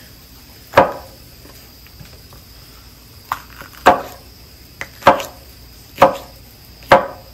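Knife chopping vegetables on a cutting board: five sharp chops roughly a second apart, with two lighter ones in between. Insects trill steadily in the background.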